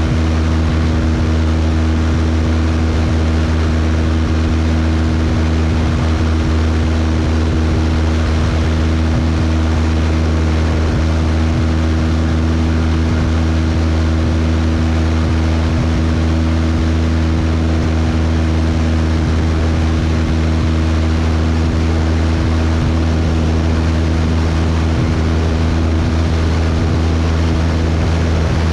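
Cessna 172's piston engine and propeller running steadily in cruise-like flight. There is an even low drone with an airflow rush over it, and the pitch and level do not change.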